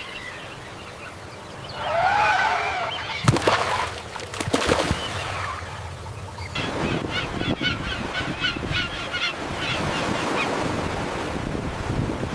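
Bird calls over a steady background hiss: one call rising and falling in pitch about two seconds in, then several sharp clicks, then a quick run of short repeated calls, several a second, from about the middle.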